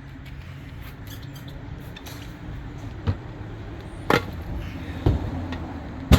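The old motorcycle tire being worked off its rim: four sharp knocks about a second apart, the last one the loudest, over a low steady hum.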